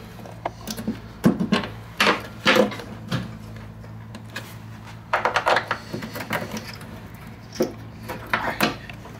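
Scattered metal clinks and knocks as a mounting bolt is slipped by hand through a snowmobile's front tunnel mount into the rear suspension skid, over a steady low hum.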